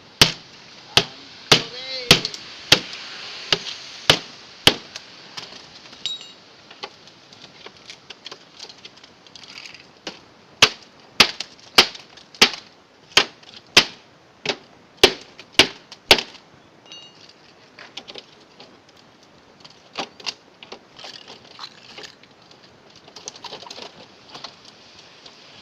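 Machete (golok) chopping into a refrigerator's body: sharp, loud blows about two a second, in one run at the start and a second run in the middle, with a few lighter knocks later.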